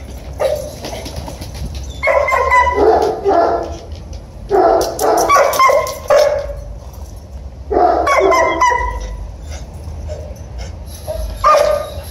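Dogs barking in quick runs of barks, about five bouts a couple of seconds apart.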